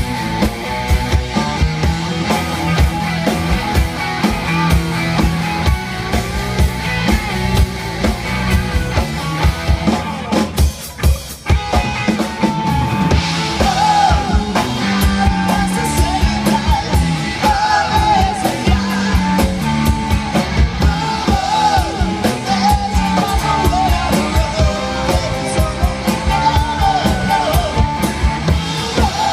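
Live rock band playing: drum kit, electric guitars, bass and strummed acoustic guitar, with a sung lead vocal. The band briefly drops out about eleven seconds in, then comes back with the vocal line.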